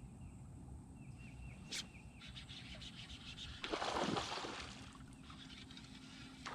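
A bird trills faintly in quick repeated notes for the first two seconds over a low steady hum, with one sharp click. About four seconds in comes a louder, brief rush of noise, the loudest sound here.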